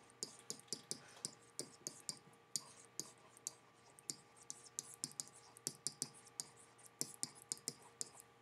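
Stylus tapping and scratching on a pen tablet as words are written by hand: quick, irregular light clicks, about three a second.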